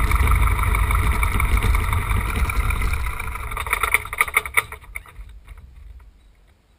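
Piper J3 Cub's engine running steadily, heard from inside the cockpit, then shut down about four seconds in: a few last uneven pulses as the propeller winds down, and the engine dies away.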